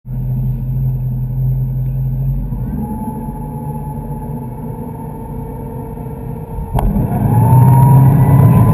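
Ski boat's inboard engine running steadily at low speed, then opened to full throttle about seven seconds in, much louder with a high whine as the boat takes the load of three water skiers off the dock. A sharp knock comes just before the throttle opens.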